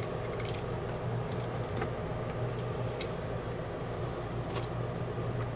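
A few scattered light clicks and crackles as Gorilla Tape is handled and pressed along a skylight frame, over a steady low hum.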